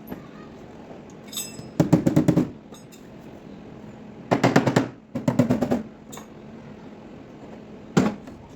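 Rapid hammer taps on a car body panel during dent repair, in three short bursts of quick strikes, about ten a second, with a single knock near the end.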